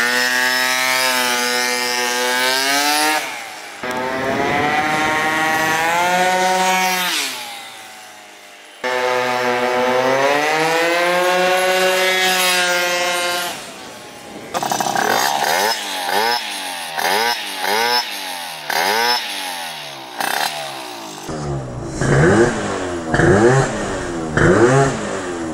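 Honda Elite scooter's 72cc Polini two-stroke engine on a prototype S23 expansion pipe, ridden hard. It makes a high-pitched, rising rev in three long pulls, then a string of short throttle blips that each rise and fall, about one a second.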